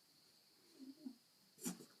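A goat making two soft low grunts about a second in, then a louder, rougher sound near the end.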